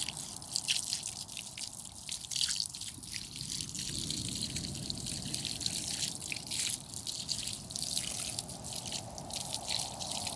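Water from an outdoor wall tap running and splashing as hands are washed under it, with irregular drips and spatters.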